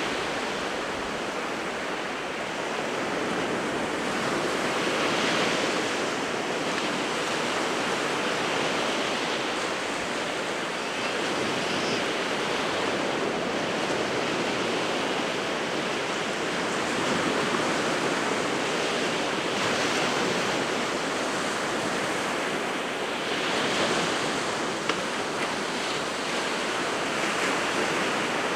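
Sea waves breaking and washing on the shore in a continuous rush of surf, swelling a little louder every few seconds as each wave comes in.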